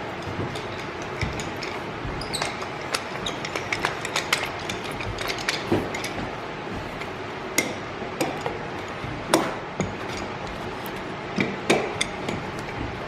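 Irregular taps and knocks of hand-tool work on wood, with a few harder strikes about nine and twelve seconds in.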